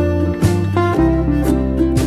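Background music: a strummed acoustic guitar, strokes about twice a second, over sustained notes and a bass line.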